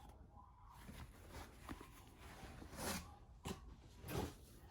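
Faint rustling of clothing and box contents being handled, with a few brief soft rustles, the loudest about three seconds in and near the end.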